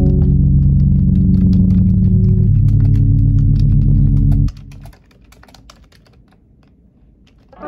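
Fingers typing quickly on a computer keyboard: rapid, irregular key clicks. Background music with low held notes plays under it and stops about four and a half seconds in, leaving the typing on its own.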